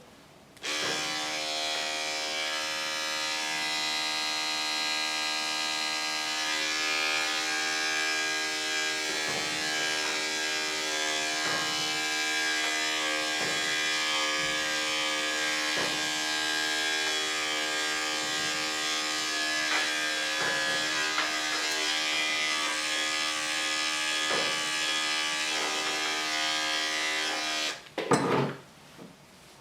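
Electric dog-grooming clippers running with a steady buzzing hum. They start about half a second in and shut off near the end, followed by a short knock.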